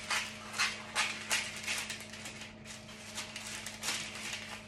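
A woman's coughing fit: a run of short, breathy coughs about half a second apart, over a steady low hum.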